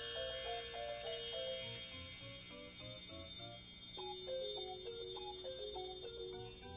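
Background music of tinkling, wind-chime-like bells ringing over a slow, simple melody of single notes.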